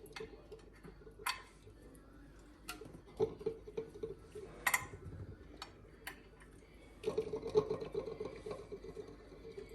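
Sparse light clicks and taps, about half a dozen scattered through, from a baking tray and soft boiled lasagna sheets being handled as the sheets are laid in the tray, over a faint steady hum that grows a little louder near the end.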